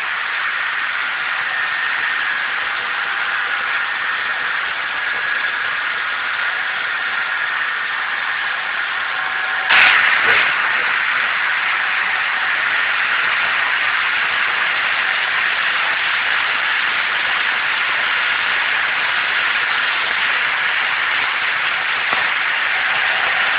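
16-spindle B-type braiding machine running, a steady, even mechanical noise from its moving spindle carriers. A sudden loud knock sounds about ten seconds in.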